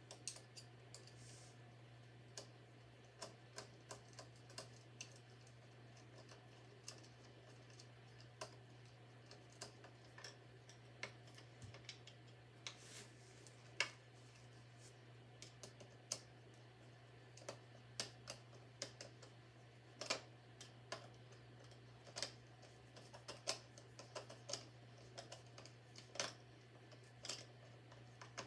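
Faint, irregular light clicks and ticks of a hand screwdriver turning the gear-housing screws on an angle grinder's head, over a faint steady hum.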